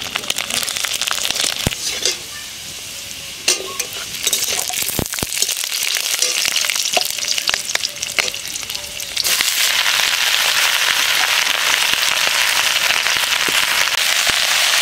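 Garlic and green chillies sizzling in hot oil in an aluminium kadai, with a metal spatula clicking and scraping against the pan. About nine seconds in, a load of bottle gourd leaves goes into the oil and the sizzle jumps to a loud, steady hiss.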